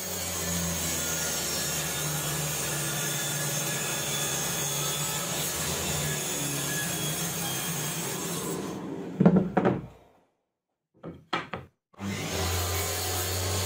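Table saw running with a steady motor hum while its blade cuts through plywood. About nine seconds in it gives way to a few loud knocks, then a short silence and some brief knocks, before the saw runs again near the end.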